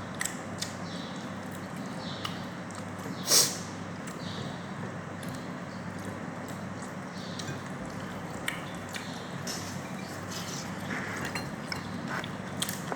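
Eating sounds of a meal of rice and fish curry: soft chewing and wet mouth noises with scattered light clicks of cutlery on a plate, over a steady low hum. One sharp, louder click about three seconds in.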